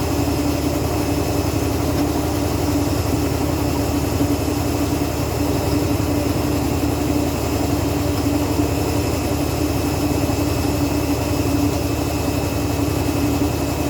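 Steady mechanical hum of a running machine, with a constant pitched whine over a low rumble and no change in speed.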